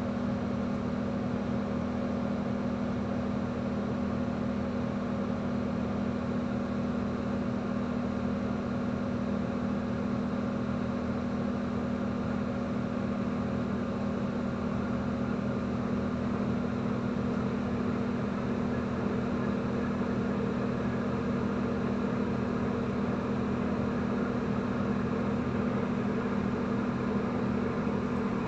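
Inside a Solaris Urbino 18 articulated diesel bus standing almost still, the engine idling with a steady low hum. The hum grows slightly louder in the second half.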